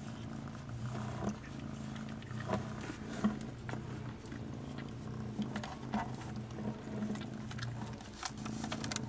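Domestic cat purring steadily while being stroked, a low rumble that keeps going through the whole stretch, with a few faint clicks and rustles.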